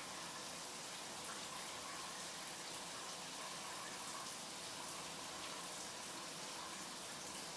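Running water: a steady, even splashing hiss.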